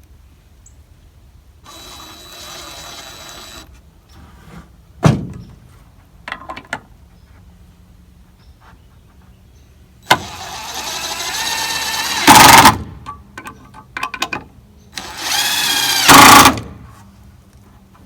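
Power drill/driver driving two screws into wooden boards: each a rising motor whine that ends in a loud, brief burst as the screw seats. Earlier come a couple of sharp knocks of boards being handled.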